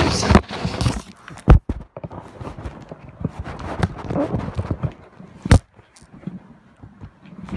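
Knocks, clicks and crackling rustles of a toy box being worked open with tools, with a sharp knock about a second and a half in and another about five and a half seconds in.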